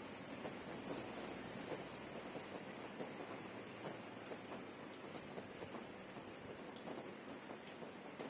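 Steady rain falling, with many small irregular drop ticks over an even hiss.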